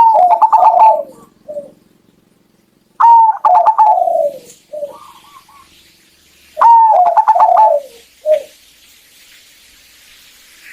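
Zebra dove (perkutut) cooing: three phrases about three and a half seconds apart, each a quick run of notes falling in pitch and ending with a short separate coo.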